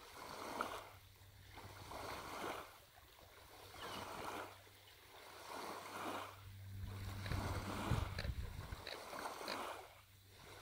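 Kayak paddle strokes in calm lake water: a watery swish about every two seconds as the blade dips and pulls, with a few light drips near the end.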